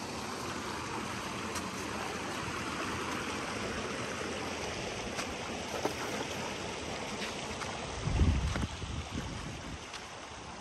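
River water rushing steadily, with a brief low rumble about eight seconds in.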